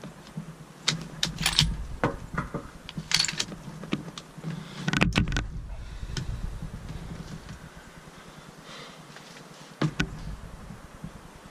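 Handling noise from a hunter shifting a scoped rifle and his gear inside a fabric ground blind: scattered small clicks, knocks and rustles, bunched in the first half, with one sharper knock near the end.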